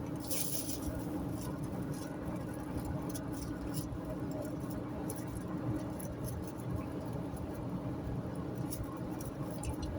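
Steady road and engine noise inside a car cruising on a highway, a low steady hum under it, with scattered faint light clicks.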